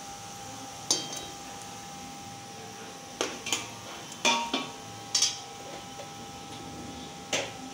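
Metal utensils clinking and knocking against an aluminium kadai, about seven sharp strikes, as a metal pan gripper takes hold of the pan's rim. Under them runs a faint steady sizzle of the tempering in hot oil.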